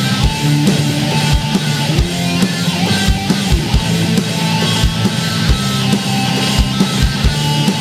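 Heavy metal music: distorted electric guitar chords over drums, with a steady run of kick drum hits.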